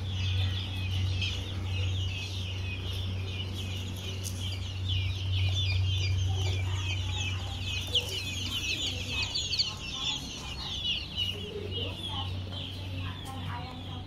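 Many birds chirping and chattering in a dense, continuous stream, with chickens clucking now and then in the second half. A steady low hum runs underneath.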